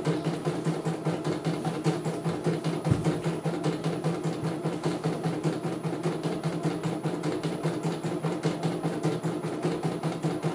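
CNY E900 computerised embroidery machine stitching: the needle goes up and down in a fast, even rhythm over a steady motor hum.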